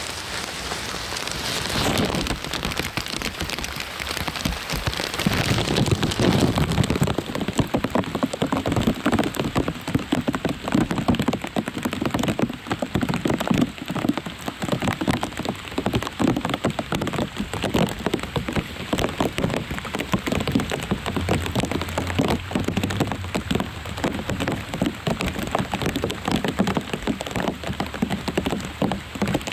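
Rain falling on lotus leaves: a dense pattering of many separate drops, getting heavier over the first several seconds and then holding steady.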